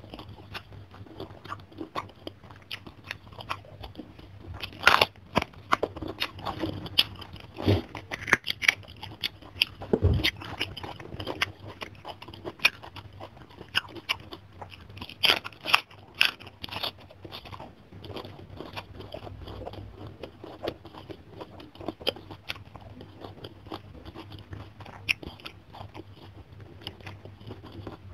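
Close-miked chewing and crunching of food, with irregular sharp, crisp crunches among steadier chewing, as of raw napa cabbage leaf being bitten and chewed. A dull low bump comes about ten seconds in.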